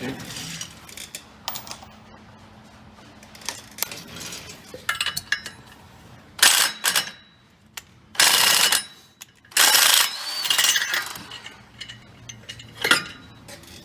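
Wrench work on a Can-Am X3 secondary clutch: scattered ratchet-like clicks and metal clinks, with several louder noises of about half a second to a second each in the second half as the clutch is worked loose.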